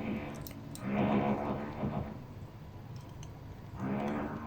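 Faint small clicks of screws being driven with a hand screwdriver into a PCB cover on an oscilloscope case. A man's voice makes two short low, wordless sounds, about a second in and near the end.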